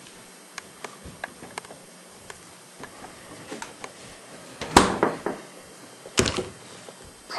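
Quiet small room with scattered light clicks, and two louder short scuffing knocks about five and six seconds in.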